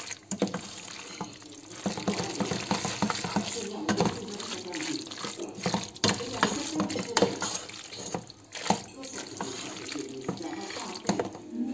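Wooden spoon stirring saucy fettuccine in a pot: wet, squelching mixing with frequent scrapes and knocks of the spoon against the pot.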